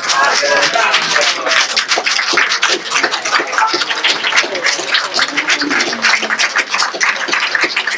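A roomful of people clapping their hands, many sharp claps close together, with voices among them.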